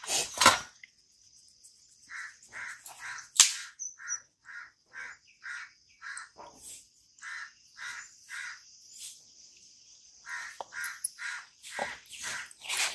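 A crow cawing over and over, about two short caws a second, in two long runs with a short pause between, over a steady high insect drone. Two sharp knocks, the loudest sounds, come near the start and about three seconds in.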